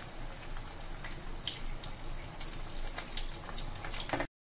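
Poha and potato cutlets deep-frying in hot oil in a kadai: a steady sizzle with frequent crackles and pops. It cuts off suddenly near the end.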